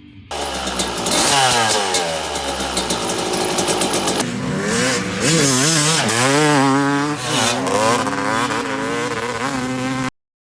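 Two-stroke motorcycle engine running hard. Its pitch falls over the first few seconds, then rises and falls repeatedly as the throttle is blipped, and it cuts off suddenly near the end.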